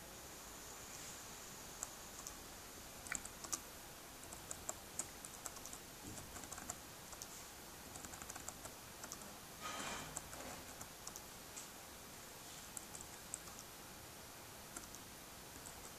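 Irregular, faint key clicks of typing on a laptop keyboard, in short runs with pauses, with a brief rustling noise about ten seconds in.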